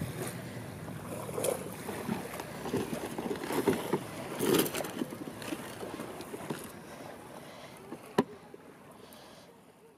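Outdoor beach ambience: wind and water noise with irregular rustling swells and a sharp click about eight seconds in, fading out near the end.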